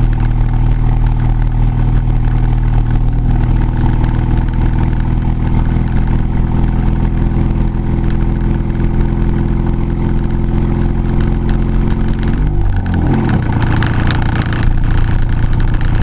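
Car engine and road noise heard from inside the cabin while driving, a steady hum whose pitch drops sharply about three-quarters of the way through and then holds steady again.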